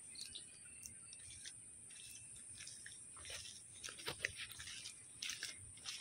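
Faint footsteps crunching on a dirt path, sparse at first and coming more often in the second half.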